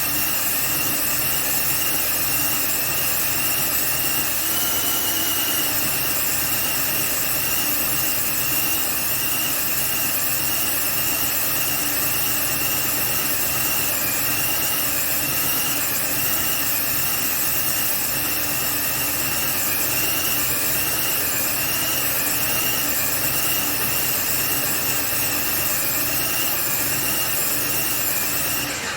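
Airless paint sprayer running continuously while spraying walls: a steady motor noise with a wavering high whine over a strong hiss, cutting off suddenly at the end.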